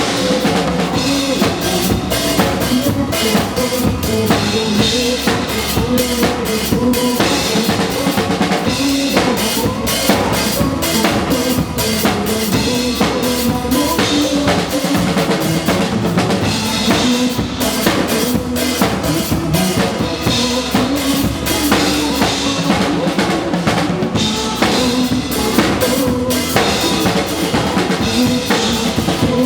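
Drum kit played in a steady, busy groove of kick, snare and cymbal hits, with pitched accompanying music underneath.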